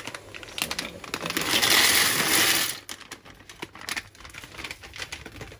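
Dry farfalle (bow-tie) pasta poured from its plastic bag into a pot of hot water: a dense rattle of the pieces, loudest from about one and a half to three seconds in, with scattered light clicks before and after.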